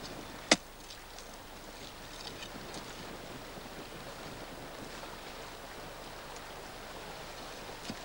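A Kolesov planting sword's steel blade being worked in stony burnt forest soil: one sharp knock about half a second in, then a steady rushing hiss with a few faint ticks.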